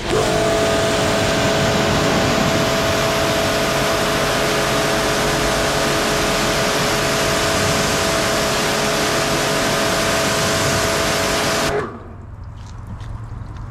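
Bormann Pro BPW 5000 electric pressure washer spraying through its narrow 15-degree nozzle: a loud, steady hiss of the water jet over a steady motor-and-pump whine. It starts suddenly and cuts off suddenly about two seconds before the end.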